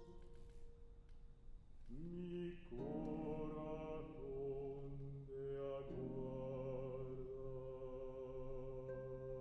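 Baritone voice singing long held notes with a gentle vibrato, with a classical guitar accompanying underneath; the notes change about two seconds in and again around six seconds.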